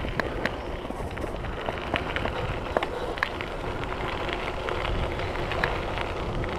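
Mountain bike tyres rolling over a gravel trail: a steady low rumble with scattered crackles and small clicks from stones and the bike rattling.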